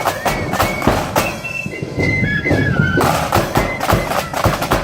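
Marching band playing: a high flute melody over a steady, loud drumbeat.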